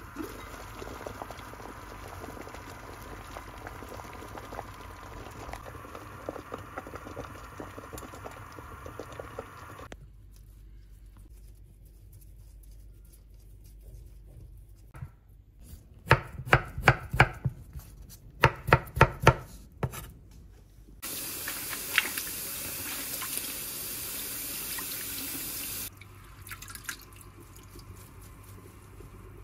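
A pot of beets boiling with a steady bubbling. After a quieter stretch comes a run of sharp knife strokes chopping on a cutting board, the loudest part. Then a tap runs hard into a sink for about five seconds and stops abruptly, followed by herbs being swished and splashed in a glass mug of water.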